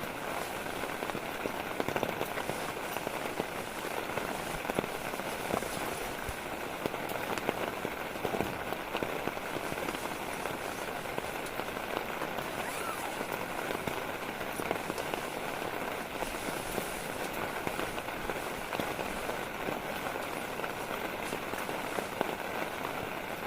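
Steady rain, a dense patter of many small drops ticking without a break.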